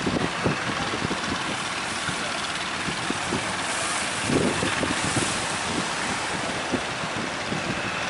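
Strong wind gusting against the microphone in irregular low thumps, over a steady rush of breaking surf.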